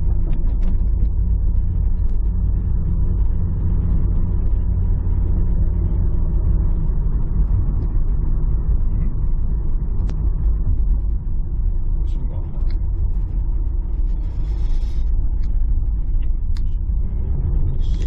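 Car interior noise while driving: a steady low rumble of engine and tyres on the road, with a few faint clicks.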